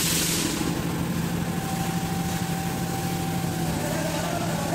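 SUV engine running at a slow, steady idle as the vehicle creeps past, with a brief hiss fading out at the start.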